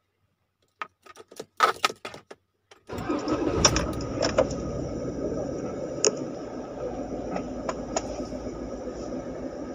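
Toyota Wigo's small petrol engine being started: a few clicks and rattles of the key in the ignition, then about three seconds in the engine fires and settles into a steady fast idle.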